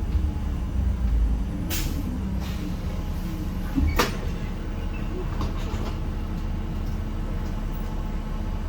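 Interior of a 1993 Gillig Phantom transit bus under way, its Cummins ISM diesel engine running with a steady low hum and rumble that is heavier for the first second and a half. Two sharp knocks or rattles sound, about two seconds and about four seconds in.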